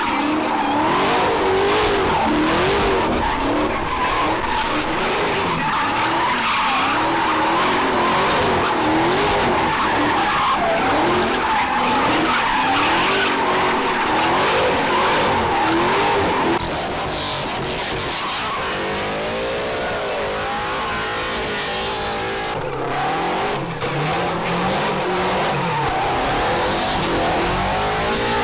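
Cars drifting: engines revving up and down over and over while the tires screech and skid. About two-thirds of the way through the sound drops a little and a different revving pattern takes over.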